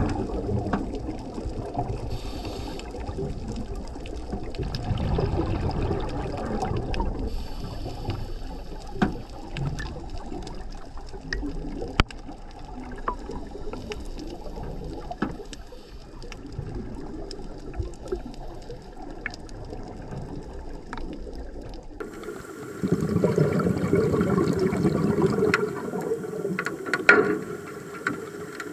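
Underwater sound picked up through a diving camera: a steady muffled water rush with scuba divers' exhaled bubbles and scattered sharp clicks. About 22 seconds in it turns louder and fuller.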